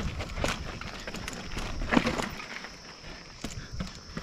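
Footsteps on a rough outdoor path: irregular scuffs and knocks of shoes on dirt and stone, with low wind rumble on the microphone.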